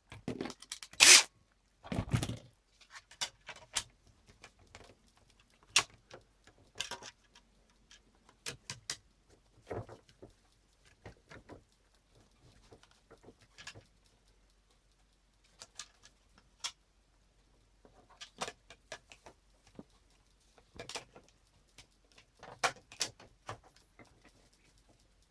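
Scattered light clicks, taps and knocks of the parts of a ski binding plate and its screws being handled and fitted, with a couple of short, louder noises in the first two seconds.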